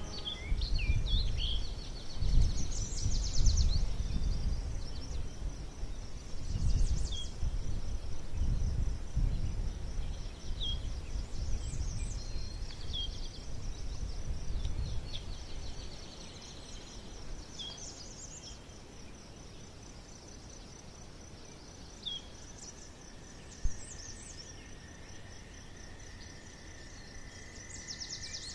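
Woodland ambience: small birds giving short, high chirps every second or two over a steady high-pitched hiss, with a low rumble through the first half that fades out about halfway through.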